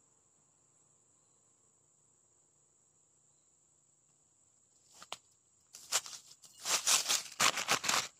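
A steady high-pitched insect drone, then from about five seconds in a run of loud rustling and bumping handling noise as the camera is picked up and moved in the grass, loudest near the end.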